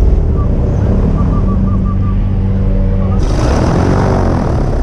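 Airboat's engine and large air propeller running steadily and loudly; about three seconds in, a rushing hiss of air joins the engine note.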